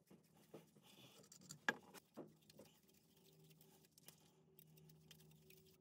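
Near silence with faint clicks and light scrapes of a brass valve assembly being threaded by hand onto a pipe fitting, the sharpest click a little under two seconds in. A faint steady low hum comes in about halfway.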